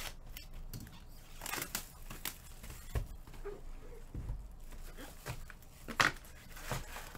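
A Bowman trading-card hobby box being handled and opened: cardboard rustling and tearing, with scattered knocks and a sharp snap about six seconds in.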